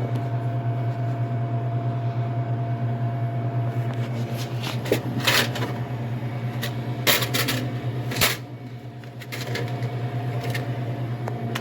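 Steady low electrical hum of a vending machine, with a few sharp clicks and rattles from handling the machine during a cash collection.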